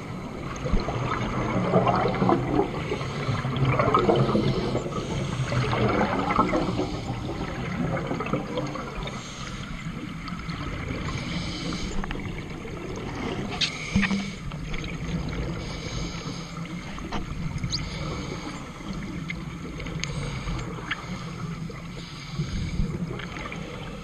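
Scuba diving underwater, heard through a camera housing: regulator exhaust bubbles gurgling, loudest in the first several seconds, then a quieter steady wash with a few sharp clicks.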